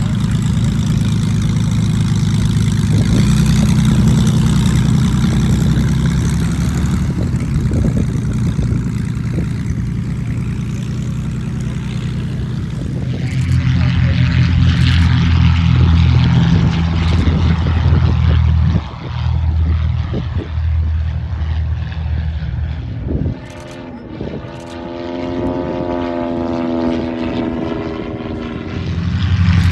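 Light propeller planes' piston engines running: first a close aircraft taxiing, then from about halfway in a more distant one at takeoff power. Near the end a plane flies past overhead, its engine note wavering in pitch.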